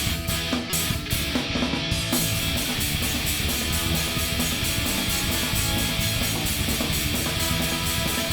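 Live rock band playing: guitar with a drum kit. The cymbals change from separate strikes to a fast, even beat about two seconds in.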